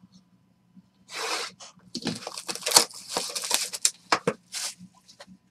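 Trading-card box and foil packs being torn open and handled: rapid tearing and crinkling of wrapper and cardboard, starting about a second in, with sharp crackles.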